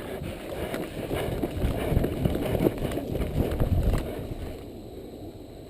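Footsteps of a person running over woodland ground, an irregular run of dull thuds with rustling; they die down about four and a half seconds in.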